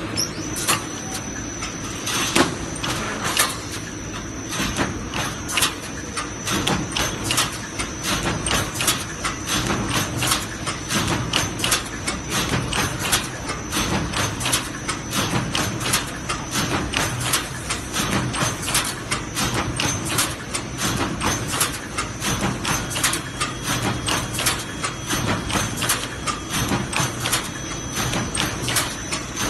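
Automatic wire mesh welding machine running in production on 358 anti-climb fence mesh: the row of welding heads and the wire feed clacking in an even rhythm, about two strokes a second, over a steady high-pitched whine.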